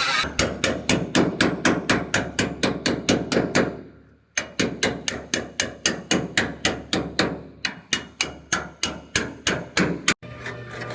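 Rapid, even hammer blows, about five a second, with a short pause about four seconds in before the hammering resumes, stopping shortly before the end.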